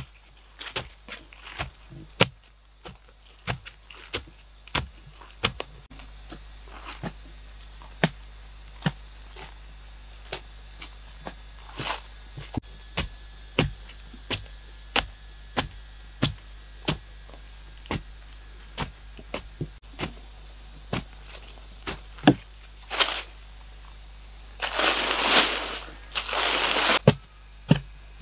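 A pointed wooden digging pole stabbing into packed soil, about one to two dull strikes a second at an uneven pace. Near the end come two longer scraping sounds of about a second each.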